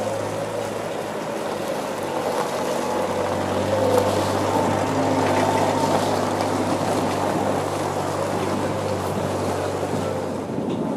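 Scammell Scarab three-wheeled tractor unit's engine running steadily as it manoeuvres, a low hum that grows stronger about three seconds in and drops away near the end.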